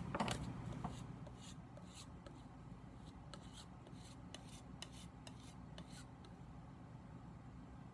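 Faint scraping and light ticks of a steel knife blade being handled and stroked during sharpening. A short, louder rub comes in the first second, then scattered small clicks, over a low steady hum.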